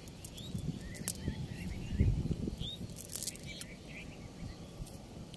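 Small birds chirping now and then over low rustling from a fishing net being handled on grass, with a dull knock about two seconds in.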